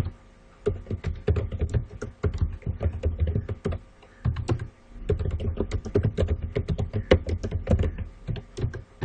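Typing on a computer keyboard: a fast, uneven run of key clicks, with a short pause about four seconds in.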